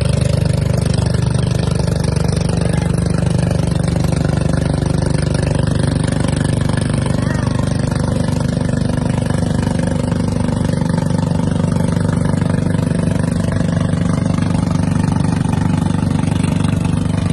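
Boat engine running steadily at idle, an unbroken low hum.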